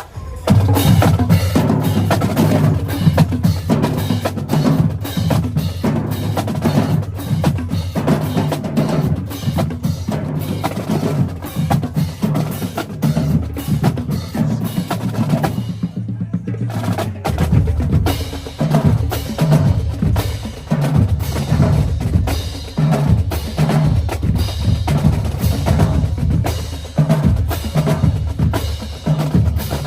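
Marching drumline playing a cadence of rapid snare drum strokes and rolls over tuned bass drums, which step through low notes. The playing breaks off briefly about halfway through, then comes back in with the bass drums more prominent.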